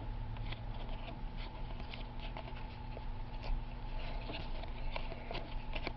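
Trading cards being handled and flipped through by hand: soft, irregular card-on-card clicks and rustles, over a steady low electrical hum.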